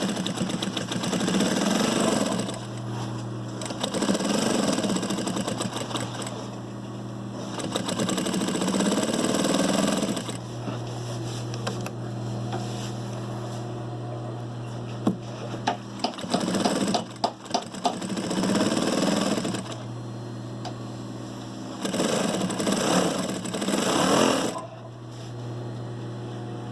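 Brother DB2-B755-3 industrial single-needle lockstitch sewing machine sewing in several short runs of a couple of seconds each, over a steady motor hum that continues between runs. A few sharp clicks come in the middle.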